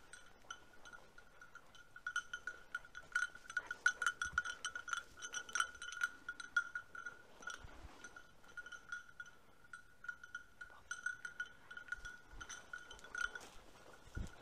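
A hunting setter's collar bell jingling in irregular clusters as the dog moves through the undergrowth. It is busiest in the middle, with short pauses. A bell that keeps ringing like this means the dog is still moving and not on point.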